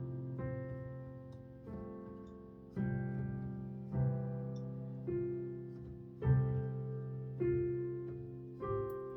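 Slow piano accompaniment with no singing: a chord is struck a little more than once a second, and each rings out and fades before the next.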